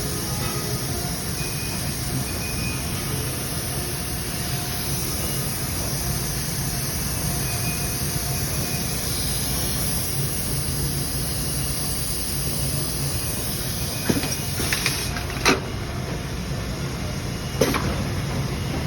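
Steady running noise of a CNC machining center, with a low hum and a few faint tones. Several sharp clanks come near the end, four in about three and a half seconds.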